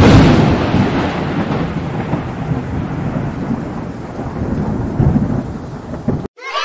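Thunderclap sound effect: a sudden loud crack, then a long rolling rumble with a rain-like hiss. The rumble swells again about five seconds in and cuts off abruptly near the end.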